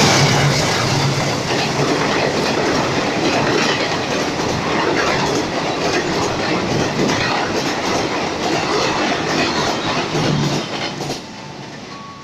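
Express passenger train passing at speed behind a CC 206 diesel-electric locomotive: the locomotive's engine hum at the start gives way to the steady clickety-clack and rattle of the coach wheels over the rails. The noise drops off sharply about eleven seconds in as the last coach goes by.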